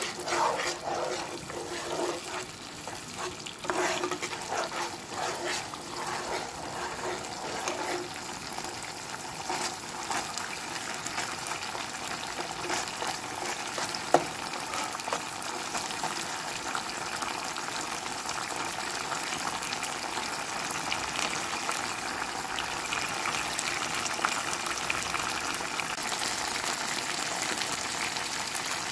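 Tomato paste frying in olive oil in a nonstick pan: a sizzle with a metal spoon stirring and scraping through it for the first several seconds, then a steady sizzle that grows a little louder toward the end. One sharp tap about halfway through.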